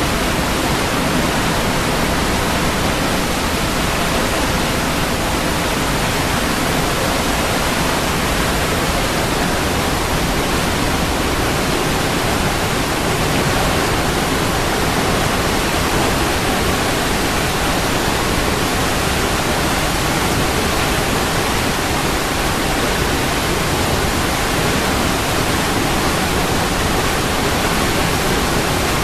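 Waterfall: water falling and crashing in a steady, dense rush with no breaks.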